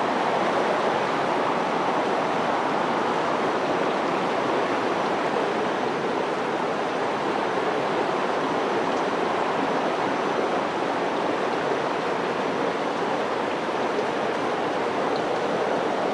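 Water rushing steadily over boulders in a small river cascade.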